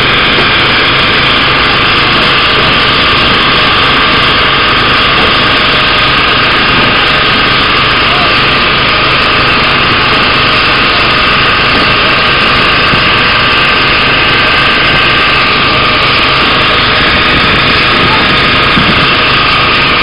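Fishing boat's engine and the pumps feeding its deck water sprays running steadily and loudly, with the rush of the sprays over the sea.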